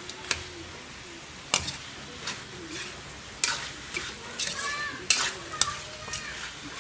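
A metal ladle scrapes and clanks against a steel wok as chicken pieces are stirred in hot oil, with a steady sizzle of the frying underneath. The clanks come at irregular intervals, about eight of them.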